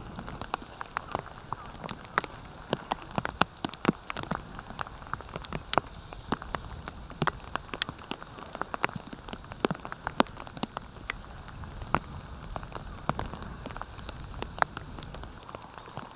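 Rain falling, the drops landing as irregular sharp taps on a surface over a faint steady hiss.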